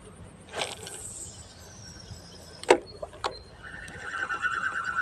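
A spinning rod and reel being cast and wound in: a short swish of line going out with a falling whistle, then two sharp clicks, then from about three and a half seconds in a steady, evenly ticking whir of the reel being cranked.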